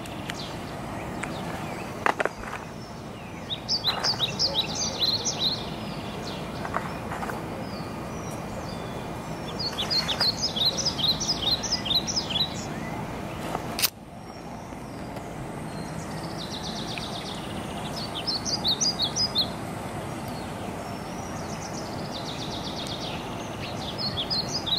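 A songbird singing outdoors: four bursts of rapid, high chirping notes, several seconds apart, over steady background noise.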